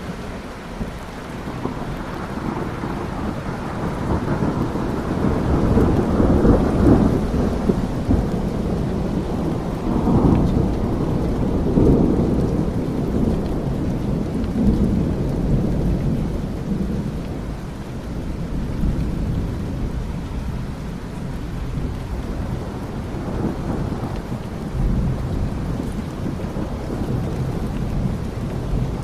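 Steady rain with thunder rumbling, swelling to its loudest in the first half and then rolling on more softly.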